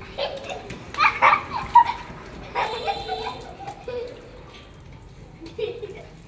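Water spraying from a hose and splashing onto a wet stone floor, with young children's voices calling out over it, about a second in and again around three seconds in.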